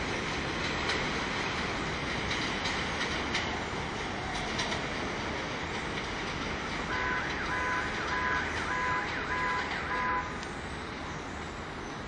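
R142A subway train running along elevated tracks as it pulls away: a steady rumble of wheels on rail with scattered clicks over the rail joints. About seven seconds in, a quick run of about seven short beeps sounds for roughly two seconds.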